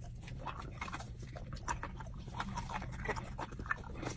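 A person chewing and smacking on a Thai chili pepper close to the microphone: irregular wet mouth clicks and munching over a low steady hum.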